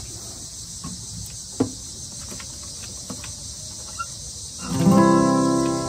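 An acoustic guitar is picked up and handled with a few light knocks, then a chord is strummed about three-quarters of the way through and left ringing as it slowly fades. Insects, crickets by their sound, keep up a steady high hiss underneath.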